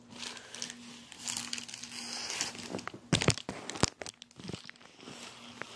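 Packaging being crumpled and rustled by hand, with a few sharper crinkles and knocks about three seconds in.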